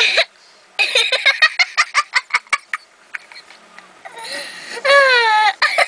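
A young girl in an uncontrollable laughing fit. A quick run of giggles is followed near the end by a long, high squeal of laughter that falls in pitch.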